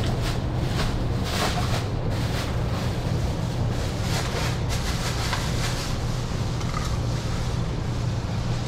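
Long knife drawn in repeated strokes along the bones of a yellowfin tuna as the loin is cut away, short scraping strokes about twice a second that fade out in the second half, over a steady low hum.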